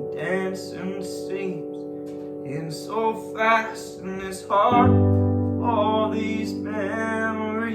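A song with a singing voice over acoustic guitar and held chords. A deep low note comes in about five seconds in.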